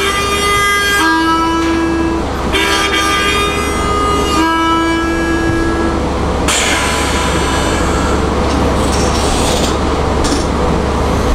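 Harmonica played in imitation of a train: long held chords switching back and forth between two pitches like a train whistle, then about halfway through a breathier, noisier passage.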